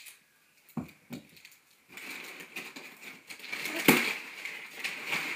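A couple of dull knocks against a cardboard box, then steady crinkling and rustling as white packing wrap is pulled out of the box, with a sharp knock about four seconds in.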